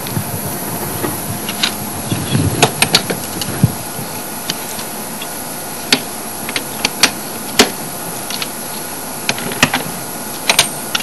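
Scattered clicks, knocks and clinks of tools and parts being handled during a vehicle tire change, with a cluster of heavier thumps about two to three seconds in, over a steady hiss.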